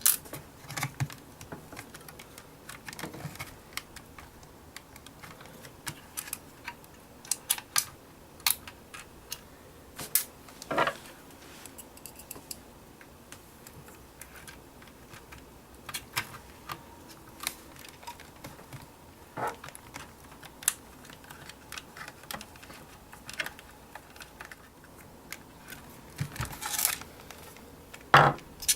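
Screwdriver driving small screws into a hard drive's side mounting holes: irregular light clicks and metal taps, a few louder knocks near the middle and near the end.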